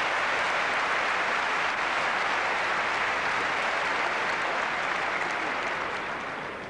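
Large crowd applauding after a winning shot, a dense steady clapping that eases off slightly near the end.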